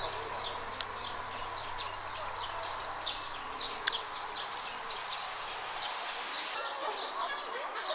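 Small birds chirping: many short, high chirps repeating in quick succession.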